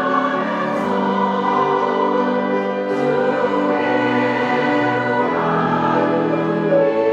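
Church choir singing a slow hymn in sustained, held chords, with instrumental accompaniment underneath.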